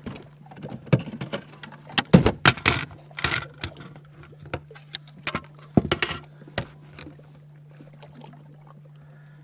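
Handling noises in an aluminum fishing boat as a just-caught crappie is dealt with: irregular knocks, clicks and thumps, some ringing briefly, for about seven seconds before settling. A steady low hum runs underneath.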